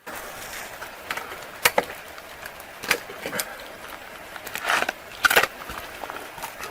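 A handful of irregular sharp knocks and crunches, as of footsteps or gear being handled, over a steady outdoor hiss.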